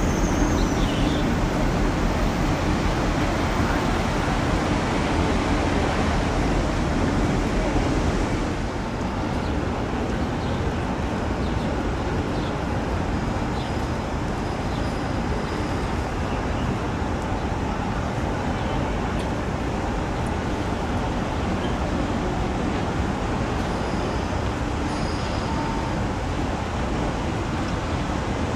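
Steady rumble and rushing noise aboard the Interislander ferry Kaiarahi under way: engine drone with wind and water noise. It drops a little in level about eight seconds in.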